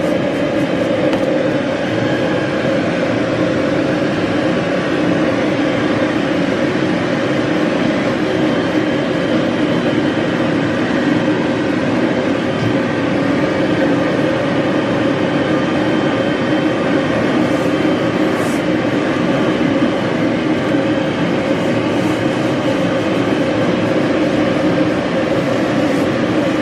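Pet grooming dryer running steadily: a loud, even rush of blown air with motor hum, used to blow-dry a puppy's coat while it is brushed.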